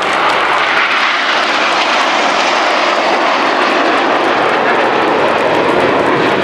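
BAE Hawk T1 jets flying past in close formation: a loud, steady jet rush whose pitch slowly falls as they go by.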